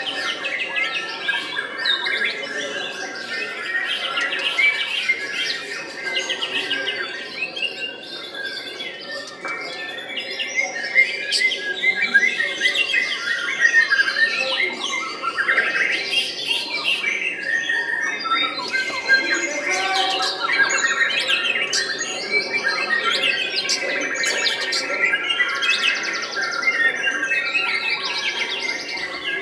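Caged white-rumped shamas (murai batu) singing without a pause, a dense, varied stream of chirps, whistles and rattling trills.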